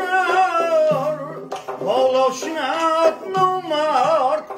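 A man sings a folk song in a wavering, ornamented voice, with pitch bends through each phrase, accompanied by a plucked long-necked lute.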